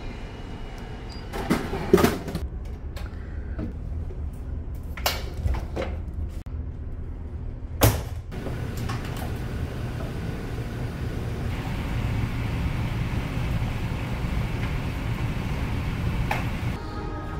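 A drink can clunking down inside a canned-drink vending machine after a button press, a single knock about five seconds in, and a sharp bang near eight seconds as the door of a coin-operated clothes dryer is pushed shut. A steady low hum from the ferry's engines runs underneath.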